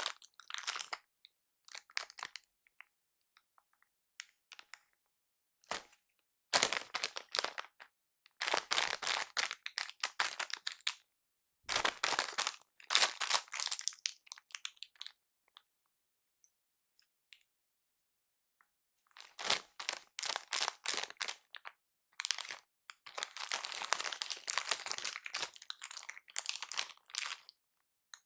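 Plastic snack bag crinkling and crackling in bouts as a hand rummages inside it, with silent pauses between, the longest about halfway through.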